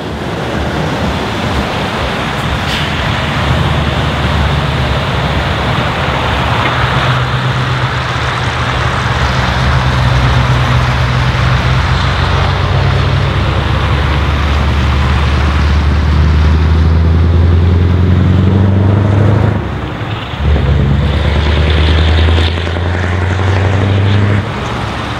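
Scania R500's V8 diesel running through straight pipes, a deep rumble as the truck drives by under power. The note steps up and down in pitch several times, with a short dip in loudness about twenty seconds in.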